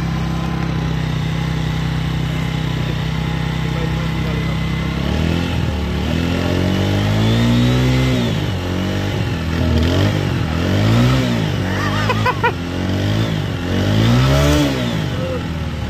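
Motorcycle engine idling steadily, then revved up and down several times from about five seconds in, each rev rising and falling in pitch.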